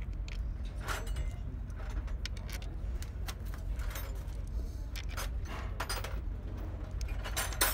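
Scattered light metallic clinks and taps of loose steel bolts and parts being handled on an opened truck gearbox casing, with a sharper cluster of clinks near the end.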